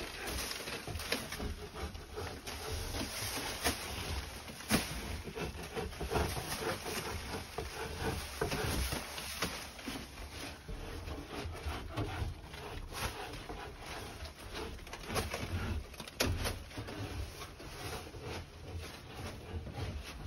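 Irregular scraping and crackling from a hand scraper taking popcorn texture off a ceiling, with a low rumble underneath.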